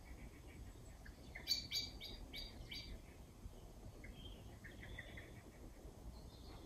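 Birds singing: a quick run of five loud chirps about one and a half seconds in, with softer rapid trilling notes before and after.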